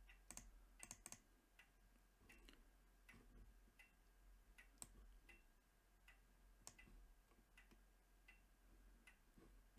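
Near silence with faint, irregularly spaced computer mouse clicks and scroll-wheel ticks, over a low steady hum.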